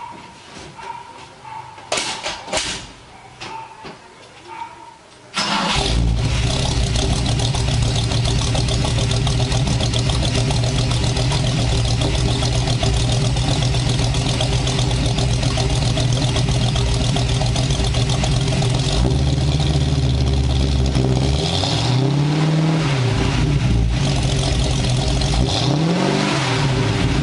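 Ford Maverick's 302 V8 starting up about five seconds in, after a few quiet seconds with clicks, then idling loud through its dual exhausts. Near the end the throttle is blipped twice, each rev rising and falling back to idle.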